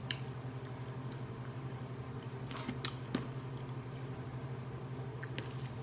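Eating sounds: a person chewing food, with a few short faint clicks from a fork picking at a plate. A steady low hum runs underneath.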